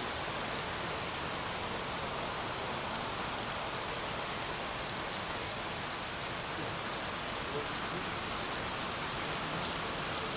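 Heavy rain pouring down, a steady, even hiss that holds without change.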